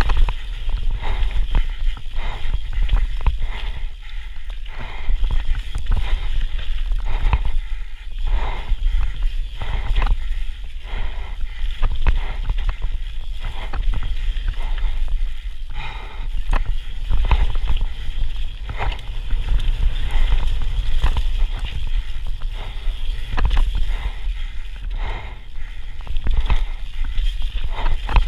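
Santa Cruz Megatower mountain bike descending a rough dirt singletrack at speed: a steady rumble from the tyres, the ground and wind on the action-camera microphone, with constant rattling and knocking from the chain and frame over roots and bumps.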